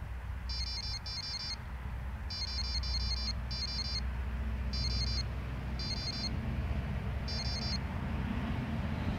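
Electronic carp bite alarm on a fishing rod beeping in short bursts of rapid high beeps, about eight bursts spread unevenly over several seconds, over a steady low rumble.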